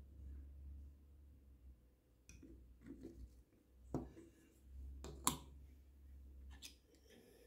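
Several faint clicks and taps of plastic building-brick pieces being handled and set down on a table, the sharpest a little past five seconds in, over a low rumble.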